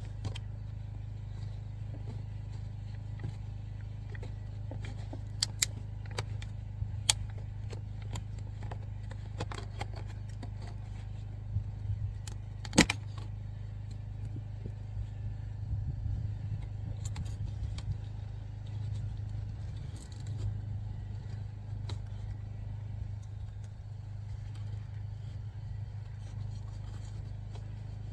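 Scattered light clicks and rattles of a plastic oil filter cartridge and its rubber O-ring being handled, the sharpest about halfway through, over a steady low hum.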